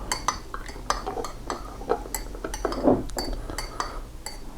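Teaspoon clinking against a cup while stirring honey into hot water: quick, irregular clinks, about four a second, each ringing briefly.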